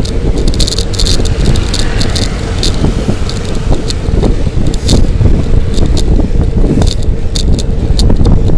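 Riding noise from a bicycle at speed: heavy wind rumble on the microphone with road noise under it, a faint steady hum, and frequent short, sharp rattles and clicks throughout.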